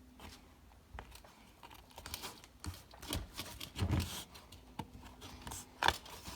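Hands stretching a warm rubber closing-wheel tire over a cast aluminum wheel half and pushing it into the groove: irregular rubbing and small knocks of rubber on metal, with louder knocks about four seconds in and near the end.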